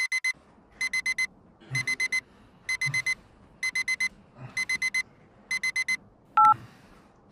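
Phone alarm beeping in quick groups of four short high beeps, about one group a second; it stops after about six seconds, just before a single short, louder two-note tone.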